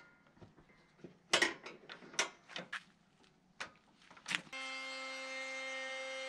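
Plastic quick-grip bar clamps clicking and knocking against the wooden bench top as a board is clamped. About four and a half seconds in, a Makita cordless trim router switches on and runs with a steady whine.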